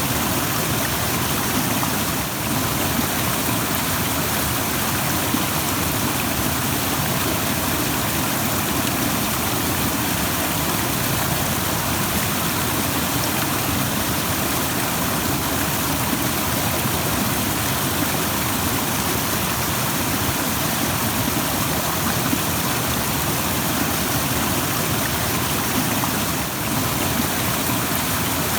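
Rushing stream: fast water running over rocks in a steady, dense rush.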